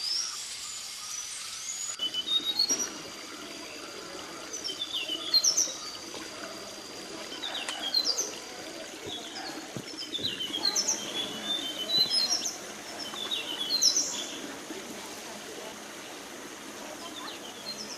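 Forest birds calling: quick chirps and whistles come in clusters every couple of seconds. A thin, steady high tone runs under them through the first half.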